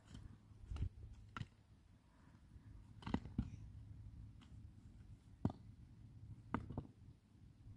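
Stones knocking and clicking against each other as they are handled and set down by hand, a handful of sharp, irregular knocks spread over several seconds, over a low rumble.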